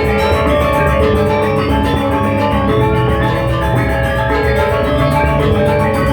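Balinese gamelan ensemble playing: bronze metallophones struck with mallets in dense, continuous, overlapping ringing tones.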